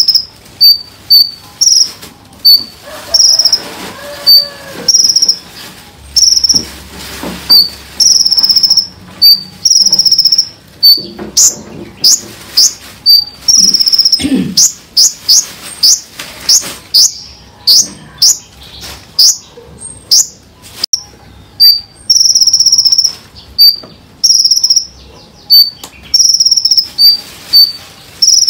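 Small songbird calling in rapid-fire 'tembakan' phrases, played as a tutor recording: short high-pitched notes repeated about twice a second. A run of quick downward-sweeping whistles comes in the middle.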